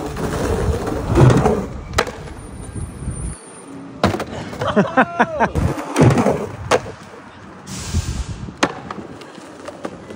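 Skateboard wheels rolling over rough concrete, broken by several sharp clacks of the board popping and landing. A short pitched sound that rises and falls comes in near the middle.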